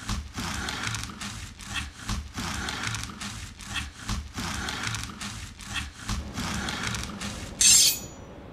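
Soundtrack of an animation clip played back over the lecture hall's speakers: an even, repeating pulsing rhythm, then a short loud hissing burst near the end, after which it cuts off.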